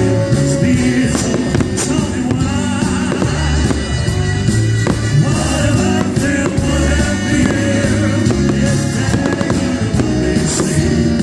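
Loud music with singing, with firework bursts and crackles mixed in.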